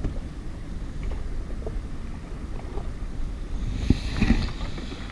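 Wind buffeting the microphone over open water, a steady low rumble with a few faint ticks, and a stronger gust hissing in about four seconds in.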